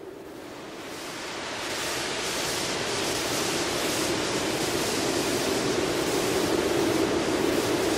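A steady rushing noise, like wind or surf, with a low drone beneath it. It fades in over the first two seconds, then holds steady.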